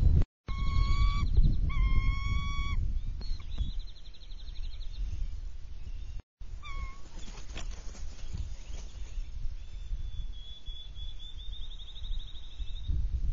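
Bald eagles calling: two drawn-out whistled notes, then rapid, high-pitched trills, with another long trill near the end. A low wind rumble on the microphone runs underneath.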